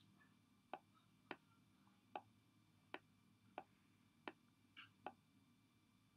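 Faint computer mouse clicks: about eight single clicks at uneven intervals of roughly half a second to a second.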